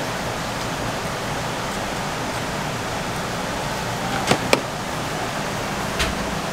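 Steady even rushing noise of a working kitchen, with two quick knocks a little past four seconds in and a sharp click about six seconds in, from gloved hands handling a raw chicken over a plastic tub of rice.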